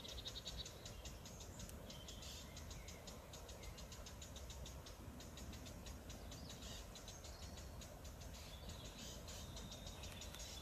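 Woodland birdsong: rapid, high chirps and trills repeating throughout, over a steady low rumble.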